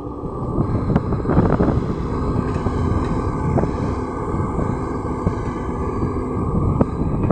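LiuGong crawler excavator's diesel engine working under load as the machine swings and dumps a bucketful of earth, with soil pouring into the dump truck's bed.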